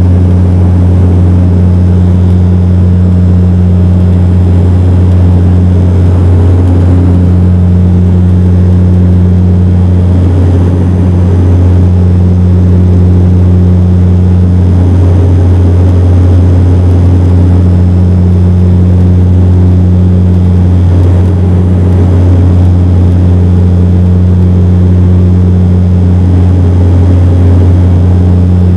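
Cabin drone of a Bombardier Dash 8 Q400 in flight, from its PW150A turboprops and six-bladed propellers, heard from a window seat beside the propeller. It is a loud, steady low hum, with a higher hum above it that fades in and out every few seconds.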